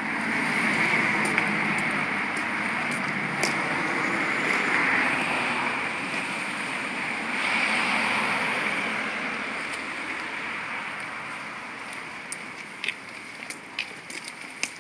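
Cars driving past on a wet road: a steady tyre-and-engine hiss that swells near the start and again about eight seconds in, then fades away. A few light clicks near the end.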